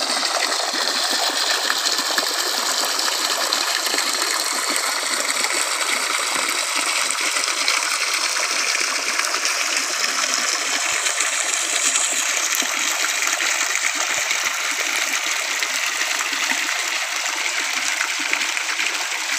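Mountain spring water pouring steadily from a pipe spout and splashing onto rocks and into a shallow pool, with a small cascade running alongside.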